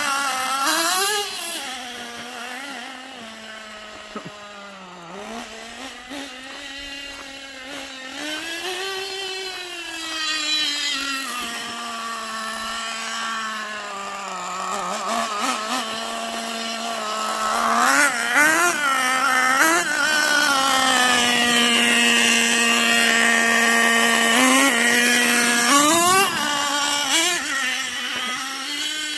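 Small two-stroke engine of a fuel-powered RC truck running at a high pitch, revving up and down again and again as it is driven. It holds a steady, higher pitch through a long stretch after the middle, with quick blips near the end.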